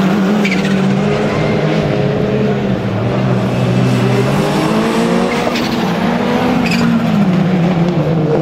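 Rallycross Super Car engines at full race pace, several cars running close together through a corner. The engine note rises and falls with throttle and gear changes, dropping lowest about three to four seconds in before climbing again.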